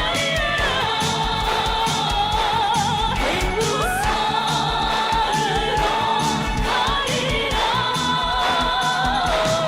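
North Korean pop song: singing with long held, wavering notes and gliding pitch changes over a band with a steady beat.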